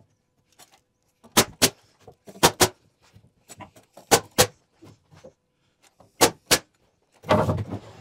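Pneumatic framing nailer firing nails into 2x4 lumber: eight sharp shots in four pairs, each pair a quarter second apart, as the corners and studs of a wall frame are nailed together. A longer rough noise follows near the end.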